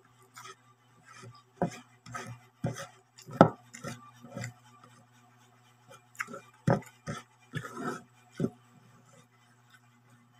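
Close-up eating sounds: about a dozen irregular sharp clicks and smacks as food is picked by hand from a ceramic plate and chewed, over a low steady hum.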